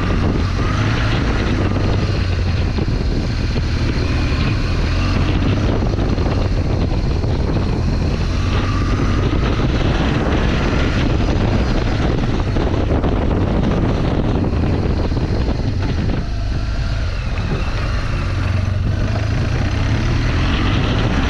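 BMW R1200 GS motorcycle's boxer-twin engine running steadily as the bike rides up a loose dirt track, with a slight drop in level about two-thirds of the way through.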